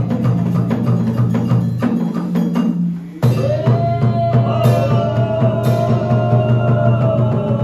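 Traditional Vietnamese ensemble music: quick wood block and drum strikes under a sliding, pitch-bending melody. The music thins out briefly and comes back in full about three seconds in.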